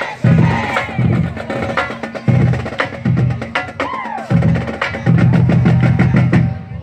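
Marching band playing: low brass notes in short loud blasts in a stop-start rhythm, over a drumline with many sharp clicks.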